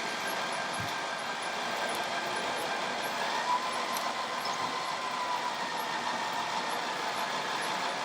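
Radio-controlled model trucks and construction machines running: a steady mechanical whine over an even hiss, its pitch rising slightly about three seconds in.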